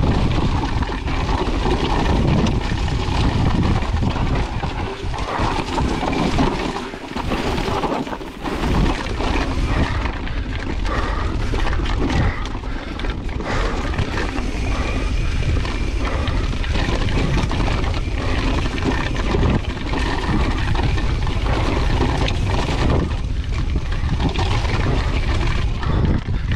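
Pivot Firebird full-suspension mountain bike descending a rocky trail at race speed: a steady rush of wind on the microphone and tyres on loose rock, with constant rattles and knocks as the bike hits rocks.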